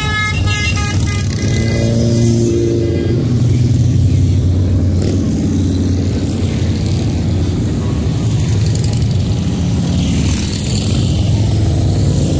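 Many motorcycles rumbling past in a steady stream of engine noise, with a horn sounding in the first second.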